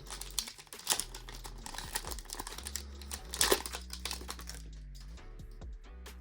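Foil Pokémon booster-pack wrapper crinkling and crackling as it is worked and torn open by hand, in a run of sharp crinkles, loudest about one second and three and a half seconds in. The pack is hard to open.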